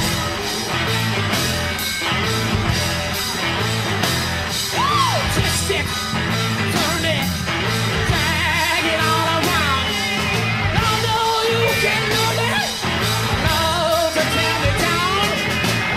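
Live rock band playing: a steady beat of drums and bass under electric guitar whose notes bend and slide in pitch, with a male voice singing loudly over it.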